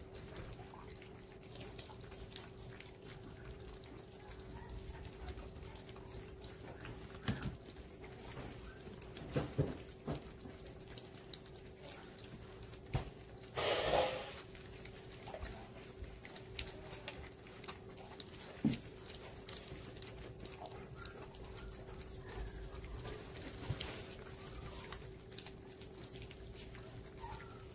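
Litter of four-week-old golden retriever puppies eating wet food from stainless steel bowls, with scattered short clicks and knocks and a louder burst of noise about halfway through. A steady faint hum runs underneath.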